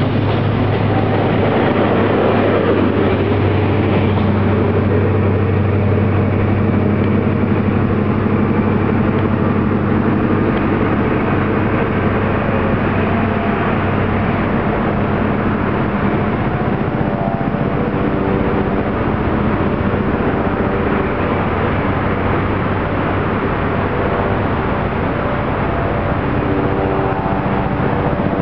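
InterCity 125 high speed train pulling away under power: the Class 43 power cars' diesel engines make a loud, steady drone, with the rush of the coaches going by as it starts. From about halfway, a higher steady hum comes in over the drone as the train draws away.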